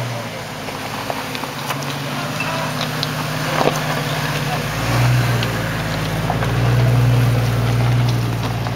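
Chevrolet TrailBlazer SUV's engine running as it crawls slowly over a rocky trail, the engine note getting louder about five seconds in and again from about six and a half to eight seconds. Scattered sharp clicks and knocks of tyres rolling over stones.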